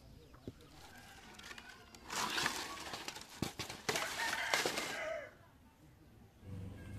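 A burst of dry rustling and crackling with several sharp snaps, starting about two seconds in and stopping after about three seconds.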